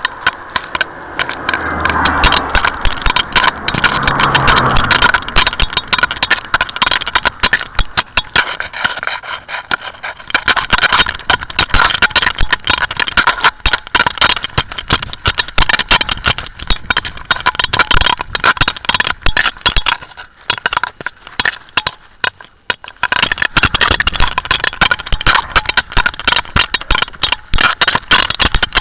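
Constant scraping, rustling and knocking of a pet camera worn by a Jack Russell terrier, rubbing against the dog's fur and its surroundings as the dog moves. A low pitched drone runs under it for the first few seconds.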